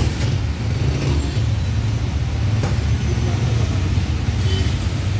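Steady low rumble of a running vehicle engine, with a few faint clicks.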